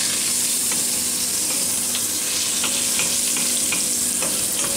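Guanciale and onion sizzling in fat in a steel frying pan, with the light scrapes and taps of a wooden spoon as it is stirred.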